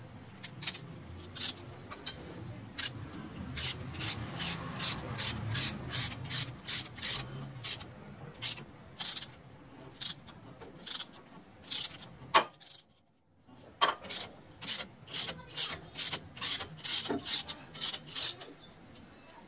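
Repeated rasping, rubbing strokes at about two to three a second. They stop briefly after a sharp click about two-thirds of the way through, then carry on.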